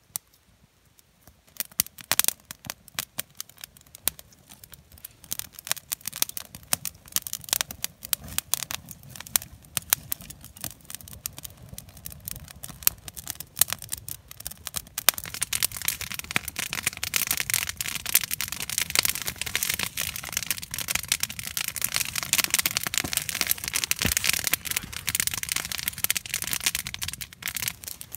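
Kindling fire of wood shavings and twigs crackling as it catches. Sparse pops grow denser until, about halfway through, they become a dense, continuous crackle.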